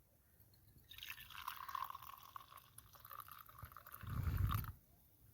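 Hot tea being poured from a pan into a cup, a steady splashing trickle lasting a few seconds. Near the end comes a short, louder low bump.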